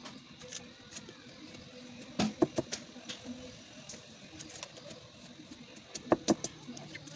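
A long kitchen knife shaving thin slices off a fresh bamboo shoot: scattered crisp cuts and clicks, loudest in two clusters about two seconds in and about six seconds in.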